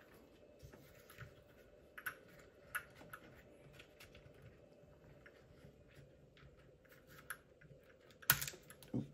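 Light plastic clicks and taps from hands handling and prying at a small RC car's plastic chassis, with a louder clatter near the end as two screws pop loose.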